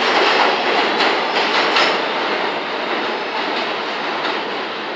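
New York City subway Q train pulling away from an elevated station. Its wheels click over the rail joints in the first two seconds, then the running noise fades steadily as it recedes.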